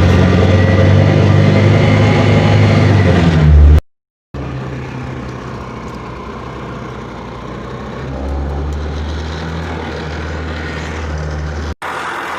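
Honda Activa single-cylinder four-stroke scooter engine driving a homemade oil-barrel boat, running steadily. It is loud at first, breaks off for half a second about four seconds in, then continues quieter, with another brief dropout near the end.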